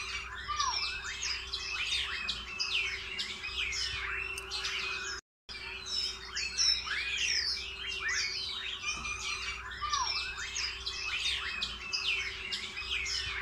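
A chorus of small birds chirping and twittering densely over a faint steady hum. The sound drops out completely for a moment about five seconds in.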